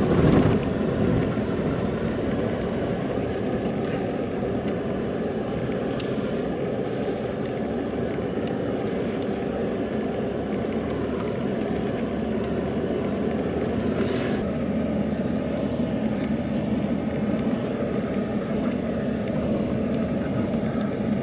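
Steady road noise inside a truck's cab as it drives along a dirt road, the engine and tyres running evenly.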